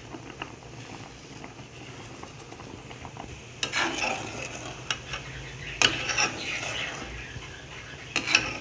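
Stirring and clinking in a metal pan of boiling milk, over a steady low bubbling hiss. Short clinks and scrapes come in a few clusters, about halfway in and again near the end.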